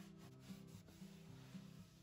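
Faint background music: a quiet passage of soft, held notes changing every half second or so.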